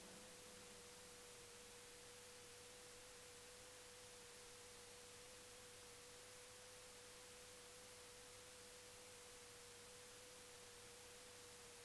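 Near silence: faint room tone with a faint steady single-pitched tone.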